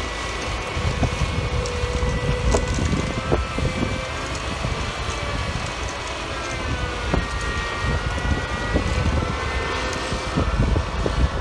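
Heavy farm machinery running: a steady low engine rumble with a whine whose pitch shifts in the second half, and scattered knocks and rattles.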